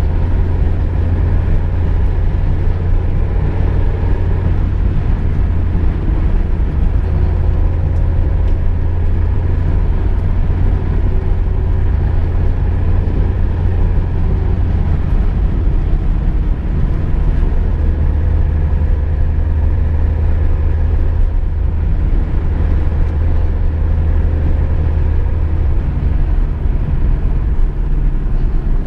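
Car driving at a steady speed: a constant low engine and road rumble, with no gear changes or revving.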